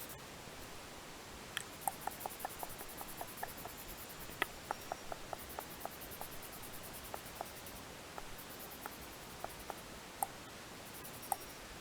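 Small, light clicks and ticks at an irregular pace, starting about a second and a half in and thinning out toward the end, over a faint hiss.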